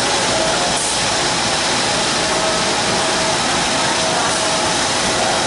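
Steady factory machinery noise: a dense, even hiss with a few faint steady hum tones running through it.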